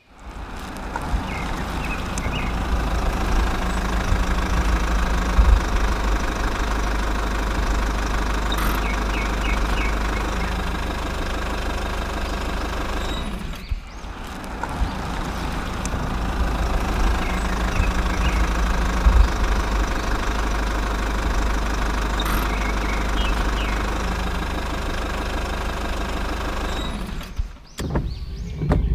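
Tractor engine running steadily at an even pace. It drops out briefly about halfway through and stops shortly before the end.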